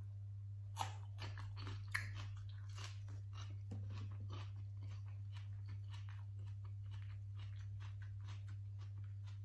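Chewing a mouthful of raw red shallot dipped in mackerel chili paste: two sharp crunches in the first two seconds, then steady crunchy chewing.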